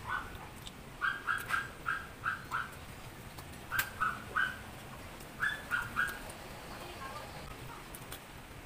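Short, high-pitched animal calls in quick runs of three to six, repeating several times.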